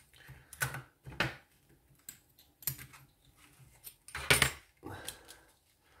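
Small hard clicks and clacks of metal tools and lock parts being picked up and handled on a workbench, about half a dozen separate knocks with the loudest about four seconds in.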